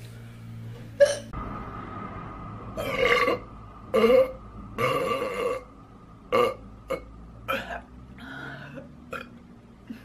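A woman belching again and again: about eight separate burps, a few longer ones of up to about a second in the middle and shorter, quicker ones toward the end.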